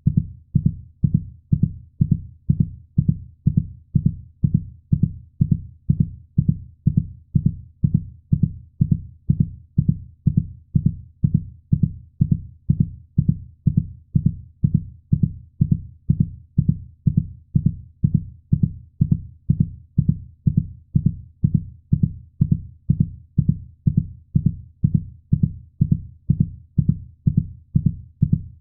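Heartbeat sound: low, dull thumps repeating in a steady, even rhythm.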